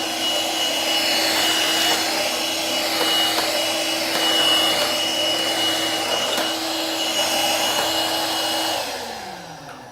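Shark Rotator Freestyle Pro cordless stick vacuum running on its low, bare-floor setting over graham cracker crumbs, a steady motor whine with a high tone over it. About nine seconds in it is switched off and the motor winds down, its pitch falling as it fades.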